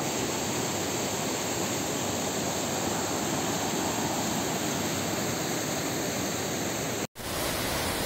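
Fast mountain stream swollen with high water, rushing white over boulders: a steady, full rushing noise. It cuts out for an instant about seven seconds in, then goes on.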